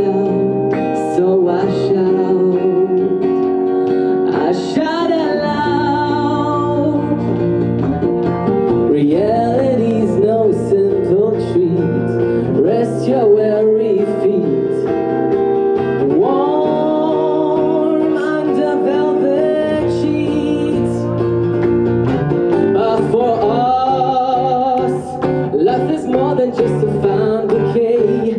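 A song performed live: a singer's voice holding and bending sung notes over guitar accompaniment.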